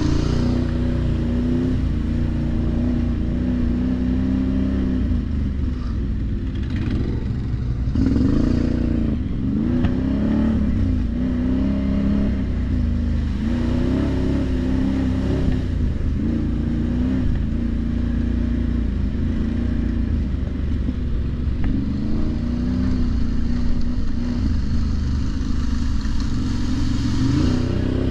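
ATV engine running while riding, its revs rising and falling again and again over a heavy low rumble.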